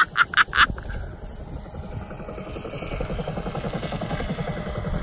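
Radio-controlled scale Bell UH-1 Huey helicopter flying past, its onboard sound system playing the Huey's rotor chop over a faint turbine whine, rated at 106 decibels. A few quick sharp pulses in the first second, then a steady rhythmic low chopping.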